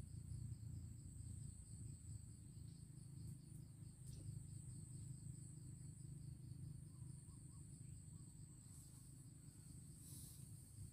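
Faint forest insects: a steady high-pitched drone with a fast, even chirping beneath it that fades out a few seconds in, over a low rumble.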